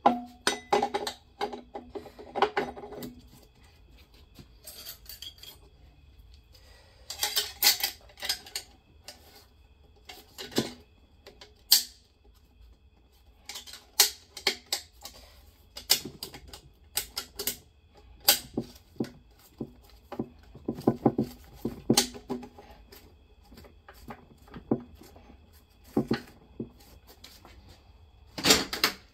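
Steel clutch plates and friction discs clinking and clattering as they are lifted out of a GM 4L80E transmission case by hand and set down, in irregular bunches of sharp metallic clicks.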